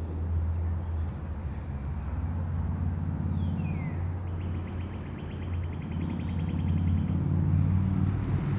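A steady low rumble outdoors, with a small bird giving a short falling whistle about three seconds in and then a rapid trill lasting a couple of seconds.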